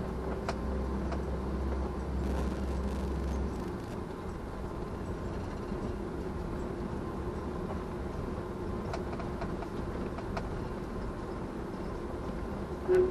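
Steady road and engine noise of a moving vehicle, with a deep rumble that fades out about three and a half seconds in. A short, loud sound comes just before the end.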